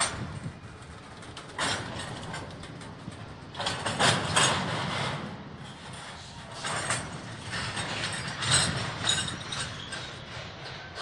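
Double-stack intermodal freight train rolling past, its wheels running and clattering on the rails, with irregular louder surges every couple of seconds.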